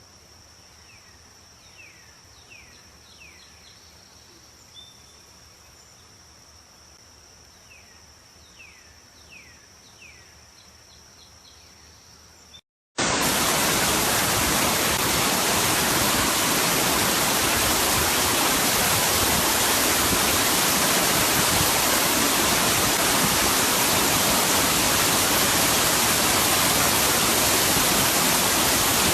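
Waterfall, a steady loud rush of falling water, cutting in suddenly about halfway through. Before it comes a quiet stretch holding a steady high whine and a few short falling chirps.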